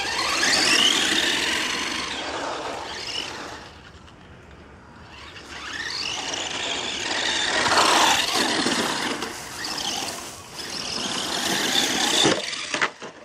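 RedCat electric RC truck driving fast, its motor whining up and down in pitch with the throttle over the rattle of its tyres. It runs in two bursts, dropping back about four seconds in before speeding up again.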